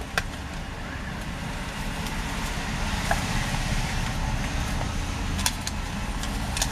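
Steady low rumble of background noise, like road traffic, with a few light clicks and taps from handling the phone's packaging and accessories.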